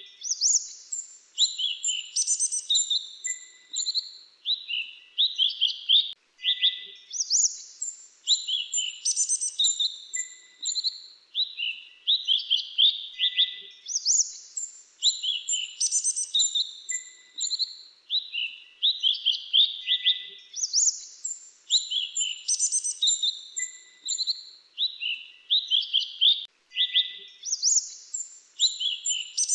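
Grey-chinned minivet calling: rapid high chirps and trills, the same sequence coming round again about every seven seconds.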